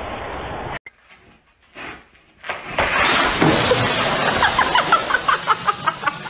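Water gushing from a ceiling duct onto the floor and into a plastic trash can: a loud steady rush that starts about two and a half seconds in, after a steady hiss cuts off and a short lull. Short high-pitched sounds repeat over the rush near the end.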